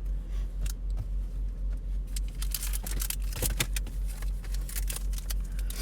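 A car's engine idling with a steady low hum inside the cabin, over scattered sharp clicks and crinkles of baseball card packs and cards being handled.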